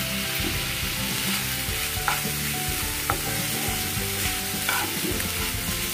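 Fenugreek leaves with peas, potato and eggplant sizzling steadily in a nonstick pan while being stirred, with about three light clicks of the utensil against the pan.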